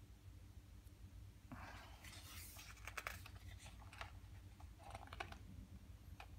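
Faint paper rustling with small clicks as hands handle the pages of a hardcover photo book, in a longer burst about a second and a half in and a shorter one around five seconds.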